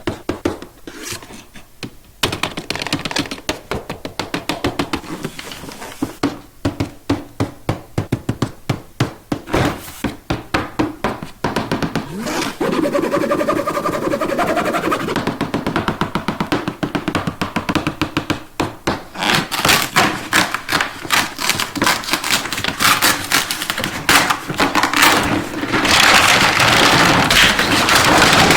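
Rapid clicking, tapping and thunking of plastic toy track pieces and packaging being handled, growing denser and louder over the last few seconds.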